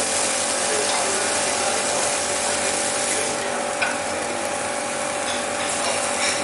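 Dosa with its minced mutton topping sizzling in an oiled frying pan over a gas burner: a steady hiss under a faint steady hum, with a light tap of the spoon on the pan about four seconds in.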